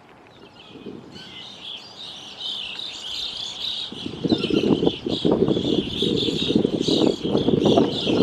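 A flock of birds calling: many overlapping high chirping calls, joined about four seconds in by a louder, lower-pitched layer of sound.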